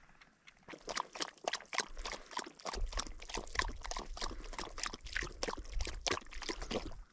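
Dry prairie grass crackling and rustling as a Brittany puppy works nose-down close at the handler's feet, a dense irregular run of crackles several times a second. A low rumble joins in about three seconds in.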